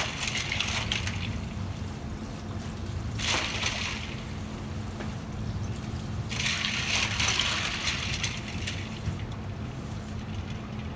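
Water running from a pull-down kitchen sprayer faucet and splashing into a stainless steel bowl as raw sea bream fillets are swished and rinsed by hand. The splashing comes in three spells, the longest from about six to nine seconds in, over a steady low hum.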